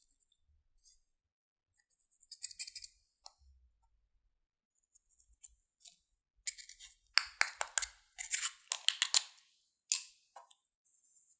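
Glossy slime being squished and worked by hand, giving sticky clicks and pops: a few at first, then a quick, dense run of loud ones in the second half.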